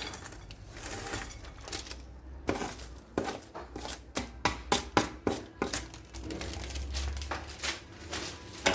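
Chopped nuts and dried fruit being mixed into a soft sweet-bread dough in a bowl: a string of irregular sticky clicks, squelches and rustles.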